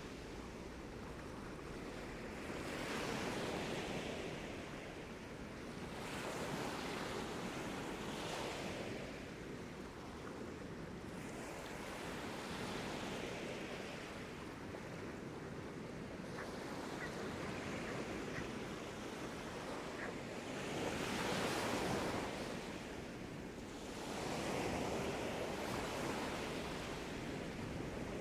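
Sea waves washing onto a beach, each wave swelling and falling away every few seconds, with some wind on the microphone.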